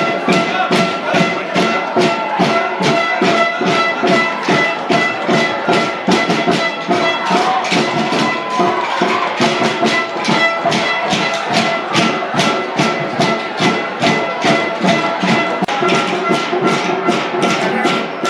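Music with a fast, steady percussion beat of about three strokes a second under held, sustained notes.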